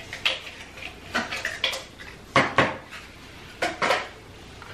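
Small bottles clinking and knocking against each other and the cabinet shelf as they are picked up and set down, in a series of separate sharp clinks, the loudest pair a little past halfway.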